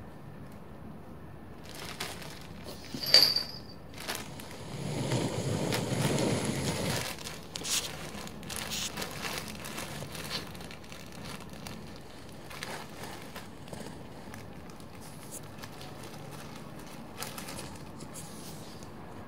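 Thin, crisp, clear plastic bag crinkling and rustling as a kitten pounces into it and wriggles inside. One sharp loud crackle comes about three seconds in, and the rustling is densest a couple of seconds later before thinning to occasional crinkles.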